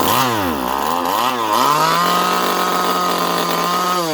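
Stihl MS 170 chainsaw's two-stroke engine running unmuffled on gasoline poured straight into it, a test that it will fire. Its speed rises and falls twice, then holds steady at high revs and starts to wind down at the very end.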